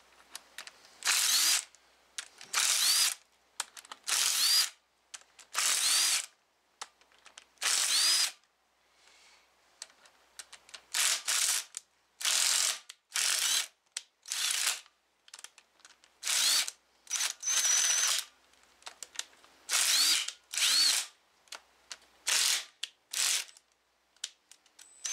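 Cordless ratchet run in a series of short bursts, about eighteen in all with brief pauses between, each starting with a quick rising motor whine, as it backs out the camshaft bearing cap bolts on a cylinder head.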